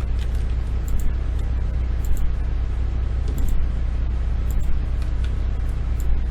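Steady low electrical hum on the recording, with a handful of sharp computer mouse clicks scattered through it, a couple of them in quick pairs.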